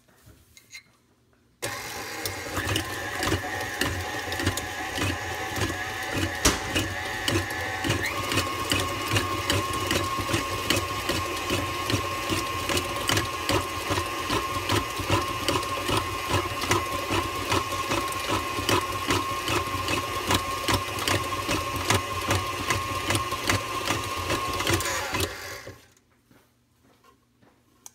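KitchenAid Heavy Duty Plus stand mixer switching on and running with its flat beater shredding cooked chicken breasts: a steady motor whine with a rapid clatter from the beater. The whine's pitch shifts about eight seconds in, and the mixer stops and winds down near the end.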